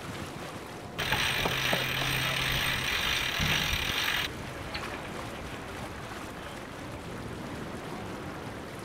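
Steady rush of sea and wind noise aboard a sailing boat. From about one to four seconds in a much louder, hissing rush of water and wind cuts in and then stops abruptly.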